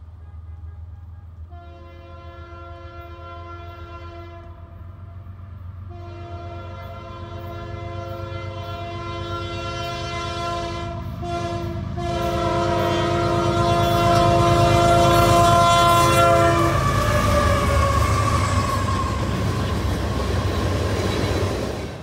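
Locomotive air horn with a fouled chime sounding several long blasts as a freight train approaches, the train's rumble building underneath and growing louder. The horn's pitch drops as it passes, then the passing train's rumble and wheel clatter continue.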